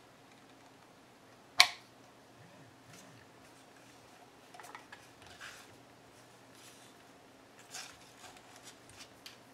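Small handling sounds of a screwdriver and fingers working on the hard plastic ear cup of radio hearing-protector earmuffs, with one sharp click about one and a half seconds in and a few faint clicks and scrapes later on.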